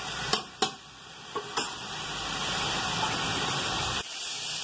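Chicken pieces sizzling as they brown in a large aluminium pot, with a metal spoon knocking against the pot three times while stirring. The sizzle cuts off abruptly about four seconds in.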